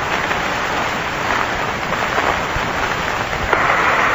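Steady hiss and static of an open air-ground radio channel on an old non-high-fidelity tape, with no voice on it.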